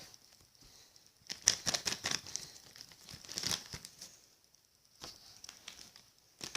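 Toy doll packaging being opened, crinkling and tearing in a few short bursts with quiet pauses between.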